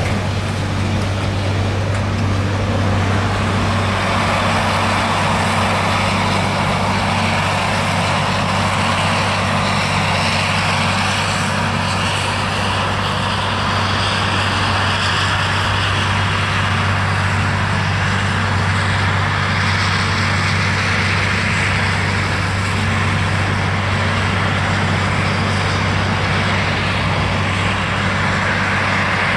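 Heavy farm machinery engine running steadily at constant speed, a loud unbroken drone with a strong low hum.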